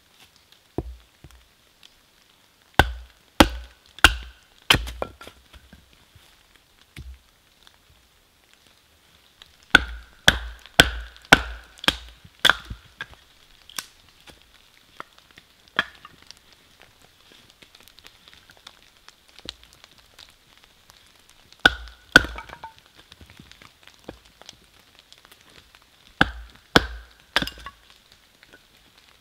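Wood being chopped: sharp woody strikes in bursts of two to six, about two a second, with pauses of several seconds between bursts.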